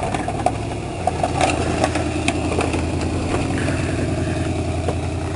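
Snowplow truck engine running steadily with a low hum, with a few scattered clicks as it plows.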